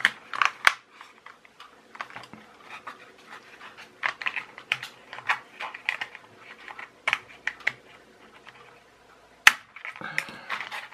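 Scattered plastic clicks and creaks as a toy car's push-fit body is prised off its chassis by hand, with a single sharp snap near the end.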